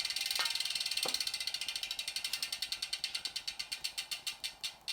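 Rear wheel freehub ticking as the carbon wheel spins freely and coasts down. The clicks are rapid at first and slow steadily as the wheel loses speed.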